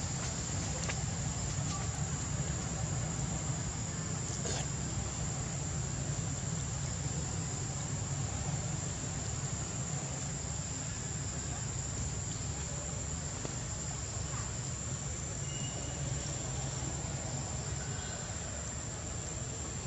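Outdoor forest ambience: a steady high-pitched insect drone over an even low rumble, with a few faint clicks.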